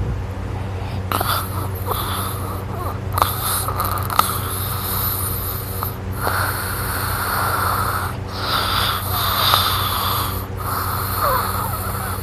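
A sleeping person snoring and breathing noisily: long hissing breaths of about two to three seconds each, one after another with short breaks between them, over a steady low hum.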